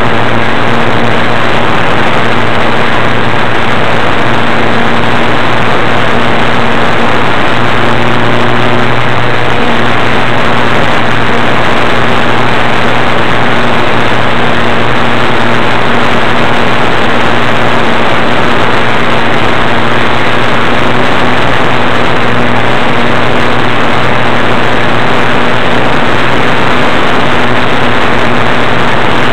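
RC airplane's motor and propeller heard through a camera mounted on the plane: a loud, steady drone mixed with rushing air, its pitch wavering briefly about nine seconds in.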